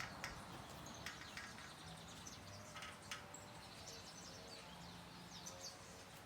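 Faint background with a few short, distant bird chirps and occasional small clicks over a low hum.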